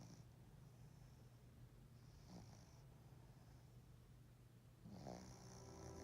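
A Tibetan spaniel snoring softly in its sleep: three little snores about two and a half seconds apart, each a brief rattle with a breathy hiss, the last one, about five seconds in, the loudest.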